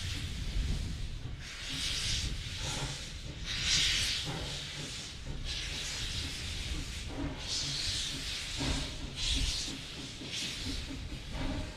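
Queensland Railways C17-class steam locomotive 971 moving off slowly with its cylinder drain cocks open: bursts of hissing steam about every one and a half to two seconds, over a low rumble.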